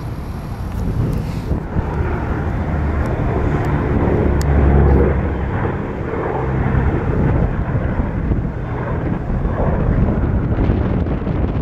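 Boeing B-17 Flying Fortress passing overhead, its four Wright R-1820 Cyclone radial engines droning, loudest about five seconds in.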